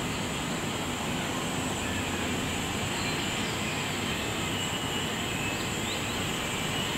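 Steady outdoor ambience: an even rumble and hiss with no distinct event, and a few faint high chirps near the end.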